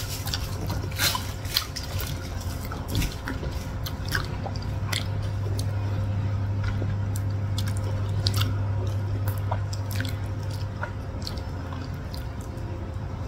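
Two people eating soft, creamy durian flesh: wet lip smacks and squelching chewing in short, irregular clicks, over a steady low hum.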